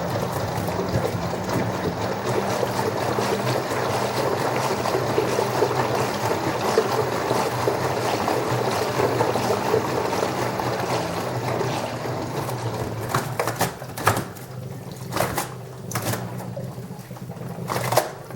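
LG washing machine running, with water sloshing in the drum over a steady motor hum. The sloshing eases about two thirds of the way through, and several sharp knocks follow in the last few seconds.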